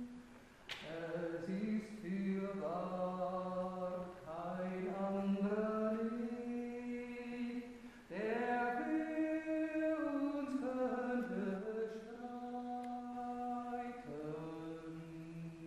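A woman singing a Marian hymn solo and unaccompanied, in slow phrases of long held notes that slide from one pitch to the next, with short breaths between phrases about a second in and about eight seconds in.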